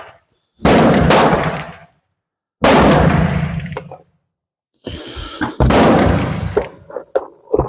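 Pistol shots at a shooting range, about five in a few seconds, each a sharp crack with a short fading echo. Smaller clicks and knocks follow near the end.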